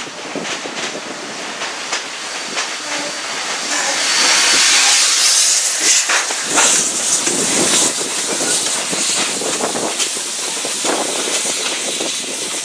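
Steam locomotive, the railroad's Chinese-built JS-class 2-8-2, passing directly below. A loud hiss of steam swells about four seconds in and eases after about ten seconds, over the clatter of the moving train.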